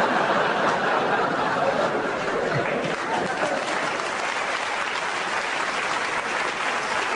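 Audience applauding with some laughter, a dense steady clapping that starts loud and eases off slightly.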